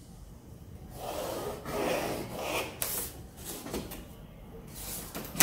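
Pencil scratching a line along a clear plastic set square on kraft paper, with the square sliding and rustling over the paper. A louder knock right at the end, as the square is put down on the table.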